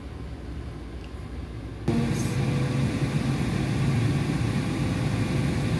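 Philips air fryer starting up about two seconds in: its fan comes on suddenly and runs with a steady whir and hum.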